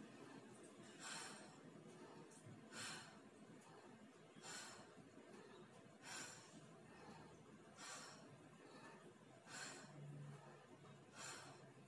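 A woman's faint, rhythmic exhaled breaths, seven in all about 1.7 seconds apart, one with each wall push-up.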